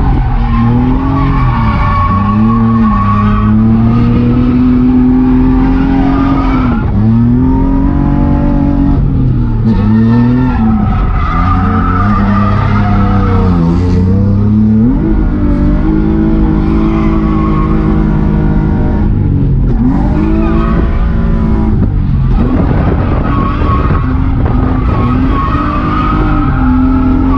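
1992 BMW E36 325i's 2.5-litre inline-six (M50B25) through a straight blast-pipe exhaust, driven hard in a drift: the revs repeatedly climb, hold high and dip again, with the rear tyres skidding.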